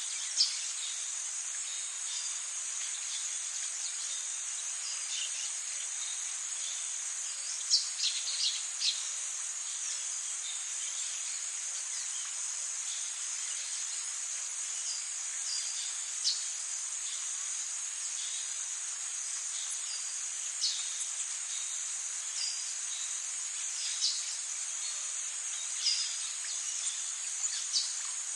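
A steady, high-pitched insect chorus, like crickets trilling, with a few brief chirps scattered through it. A small cluster of chirps comes about 8 seconds in.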